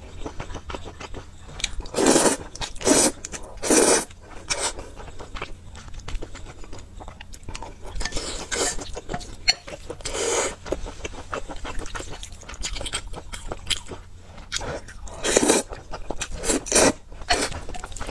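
Close-miked slurping and chewing of spicy instant noodles in sauce: several loud slurps of about half a second each, with wet chewing in between.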